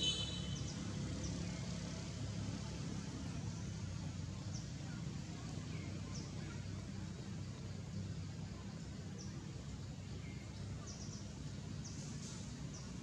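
Outdoor ambience: a steady low rumble with faint, short high-pitched bird chirps scattered through it, and a brief brighter call right at the start.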